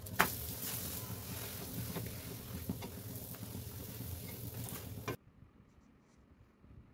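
Food sizzling in a hot pan: a steady hiss with scattered crackles over a low hum, cutting off suddenly about five seconds in, followed by near silence.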